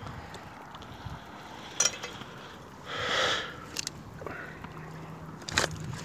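Shallow seawater washing over rocks and seaweed at the water's edge, with one louder wash about three seconds in and two sharp clicks.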